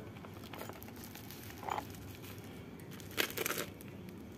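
Black plastic parcel wrapping crinkling as the package is handled: a short rustle a little under two seconds in and a louder burst of crinkling around three seconds in.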